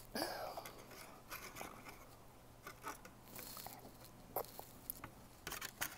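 A child eating homemade jelly balls with a plastic spoon: soft wet mouth sounds and scattered light clicks and taps of the spoon against a plastic tray.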